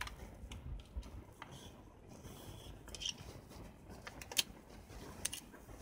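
Handling of a 35 mm film cartridge being loaded into a Canon EOS-1 film SLR: a few light, separate clicks and soft scrapes as the cartridge is seated and the film leader is drawn across the open back.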